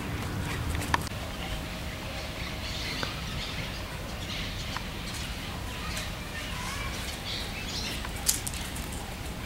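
Outdoor ambience: birds chirping now and then over a steady low rumble, with a few sharp clicks, the loudest about a second in and another near the end.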